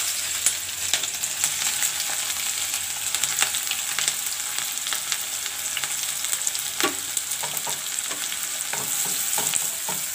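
Hot oil sizzling and crackling steadily in a kadai as chopped onions and green chillies fry in the tempering, then are stirred with a wooden spatula.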